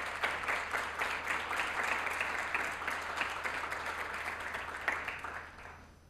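A seated audience applauding, the clapping thinning out and stopping near the end.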